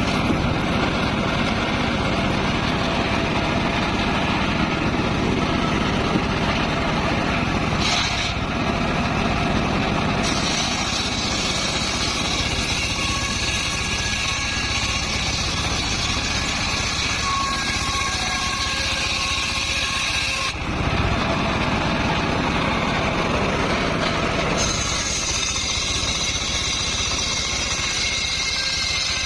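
Homemade engine-driven circular saw running steadily. A higher hiss comes in and drops out several times, sometimes abruptly.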